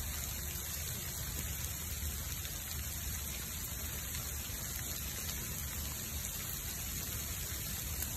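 Wood bonfire burning in a freezing-rain storm: a steady hiss of rain and flames, with a low rumble underneath.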